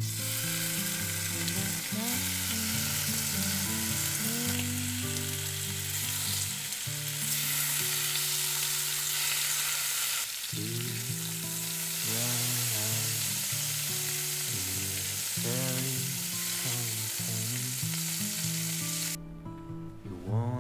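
Strips of bacon frying in an oiled pan, a steady sizzle that cuts off suddenly near the end, over soft background guitar music.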